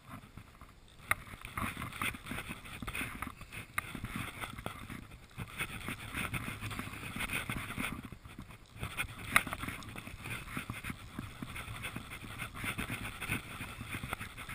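Wooden fly reel's click ratchet chattering as the handle is turned and line is wound in by hand, with a couple of short pauses in the winding.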